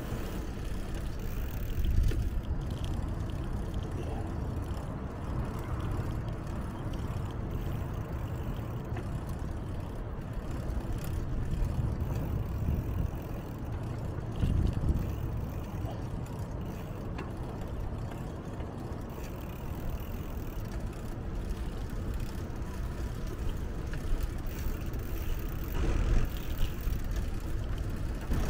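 Steady low rumble of wind on the microphone of a moving bicycle, mixed with passing road traffic, swelling louder a few times.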